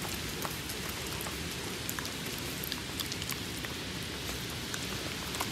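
Light rain falling: a steady hiss with scattered ticks of drops.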